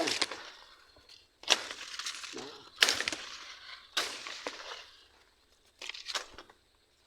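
A series of about six sharp cracks, irregularly spaced with the last two close together: dry twigs and bamboo litter snapping and breaking.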